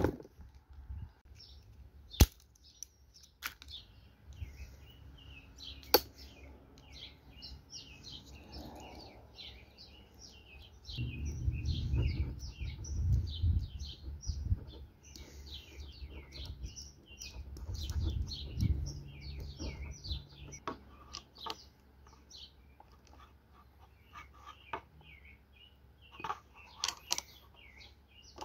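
Small birds chirping over and over, with a few sharp clicks and knocks from hands handling cardboard boxes and a plastic fuse holder. A low rumble comes in for several seconds in the middle.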